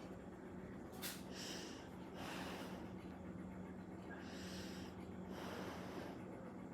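Nervous, frightened human breathing: two pairs of heavy breaths in and out, with a short sharp click about a second in. A steady low hum runs underneath.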